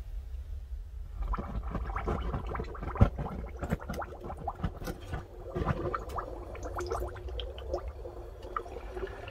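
Red-hot steel knife blade being quenched in a bucket: bubbling and crackling sizzle as the liquid boils against the hot steel, starting about a second in, with one sharp pop about three seconds in.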